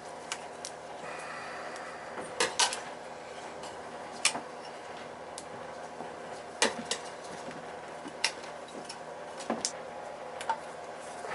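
Sharp metallic clicks and taps of hand tools and small parts being handled while wiring a boiler control, about a dozen scattered through, some in quick pairs, over a steady hum.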